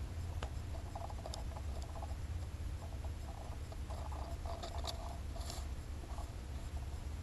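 Steady low rumble of wind on the microphone, with scattered faint ticks and short soft sounds, a cluster of them a little past halfway.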